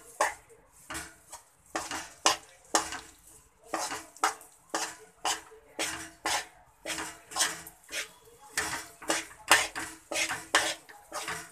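Metal spoon scraping and knocking against a metal kadhai in quick, regular strokes, about two a second, as besan is stirred and roasted in ghee.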